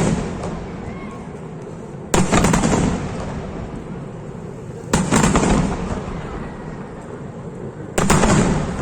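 Fireworks bursting in a display: three loud bangs about three seconds apart, each trailing off over about a second.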